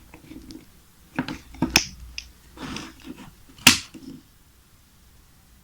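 A few sharp clicks and knocks from handling a MagSafe 2 charger and its plug while connecting it to power, with a soft rustle between them and one loudest click about three and a half seconds in.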